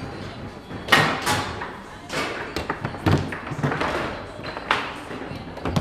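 Foosball table in play: the ball cracking off the plastic players and the table walls, with rods knocking against the bumpers, a string of sharp knocks at uneven intervals, some louder shots among them.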